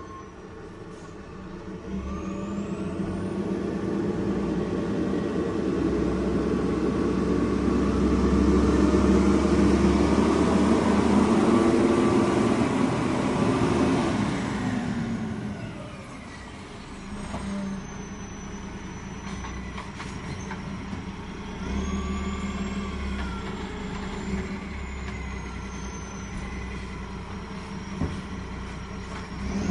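Heavy diesel logging vehicle's engine running under load, building up for several seconds and then dropping back about halfway through, with high squealing whines gliding up and down later on.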